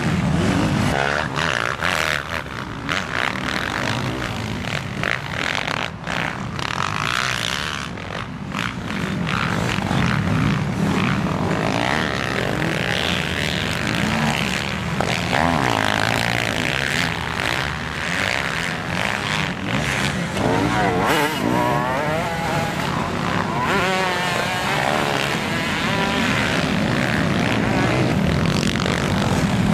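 Several motocross bikes' engines racing on a dirt track, revving up and down as the riders work the throttle, the pitch rising and falling repeatedly.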